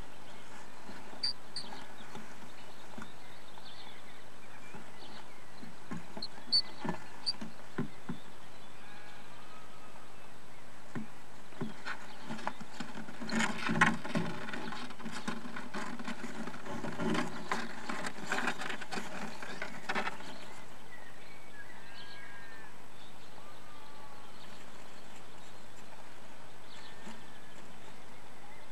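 Common swifts moving about inside a wooden nest box, their wings and claws scrabbling against the boards and the dry nest material. Scattered light taps early on, then a dense spell of flapping and scratching lasting several seconds in the middle.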